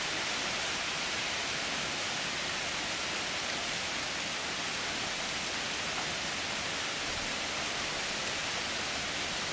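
Heavy rain pouring down: a steady, even hiss with no breaks.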